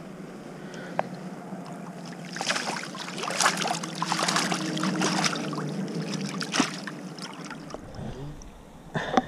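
Water splashing as a hooked trout thrashes at the surface and is scooped into a landing net, a dense flurry of splashes from about two seconds in to about seven seconds, then a few brief knocks near the end.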